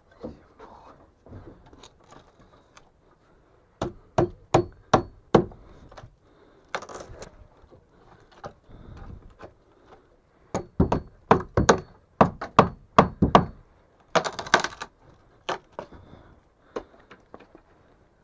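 A series of sharp knocks and thuds: about five in quick succession around four seconds in, then a run of about eight more a few seconds later, with a short scraping crunch just after.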